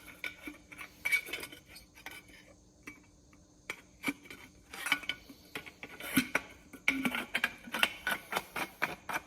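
Metal parts clinking and knocking together as they are handled, a string of light irregular clinks with brief ringing, thickest in the second half.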